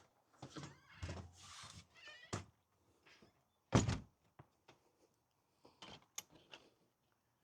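Scattered knocks and thuds, the loudest a little under four seconds in, with a brief high wavering squeak about a second and a half in.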